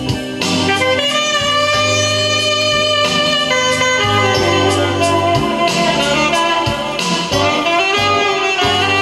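Music playing from a vinyl LP on a Dual 701 turntable: a sustained lead melody over a steady bass line.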